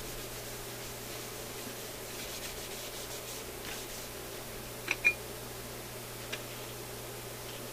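Paper towel rubbing over a BSR record changer's mechanism as it is cleaned, with two sharp metallic clicks close together about five seconds in and a lighter click a little later as a small metal wheel is taken off the mechanism.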